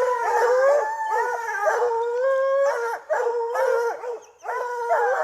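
Several young hunting dogs baying at a treed bear: overlapping long howls from more than one dog, broken by shorter barks.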